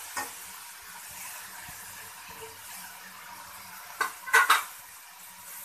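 Shredded cabbage, carrot and capsicum sizzling in oil in a metal wok as they are stir-fried, a steady hiss. About four seconds in, a metal spatula scrapes and knocks against the wok three times, the loudest sounds here.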